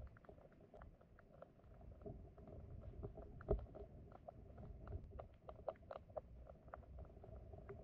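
Flowing stream heard underwater: a low rumble with many small clicks and ticks scattered through it, and one louder knock about three and a half seconds in.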